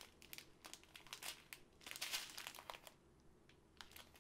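Strip of small plastic zip bags of diamond-painting drills crinkling faintly as it is handled, in several short spells with a quiet second about three seconds in.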